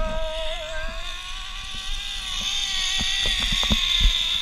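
Zipline trolley pulleys running along a steel cable: a steady whine at several pitches over a hiss that grows louder toward the end, with a few low knocks.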